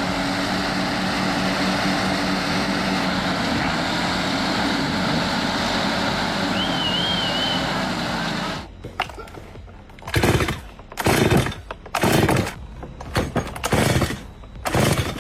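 A heavy engine running steadily, then cut off abruptly about nine seconds in, followed by a series of separate loud bursts roughly a second apart.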